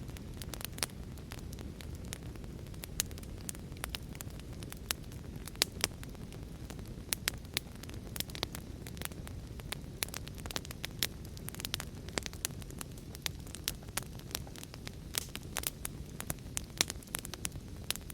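Wood fire in a fireplace crackling, with irregular sharp pops several times a second over a steady low rushing noise of a storm with heavy rain.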